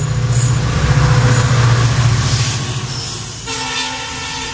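Twin WDG-4 and WDG-4D diesel locomotives, each with an EMD 16-cylinder two-stroke engine, hauling a loaded freight train past on the adjacent track, heard from a moving passenger coach: a deep, pulsing engine drone swells as they come alongside, with a growing rush of wheel and air noise. About three and a half seconds in, a train horn sounds for about a second.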